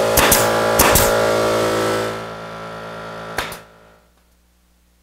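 Grex 18-gauge pneumatic brad nailer firing several sharp shots, in quick pairs, as a plywood shelf is nailed down. Under the shots a steady motor hum runs, drops lower about two seconds in and cuts off near four seconds.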